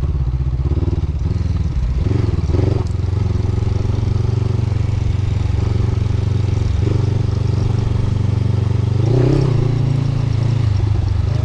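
Motorcycle engine running steadily at low revs while riding, with brief changes in throttle about two seconds in and again near nine seconds.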